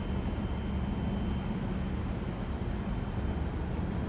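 Steady low rumble with a constant hum, heard on a cruise ship's balcony while the ship is under way: wind and the ship's engine and ventilation noise.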